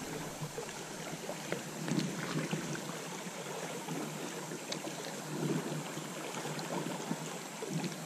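Steady rushing hiss of flowing river water, with a few soft low thumps.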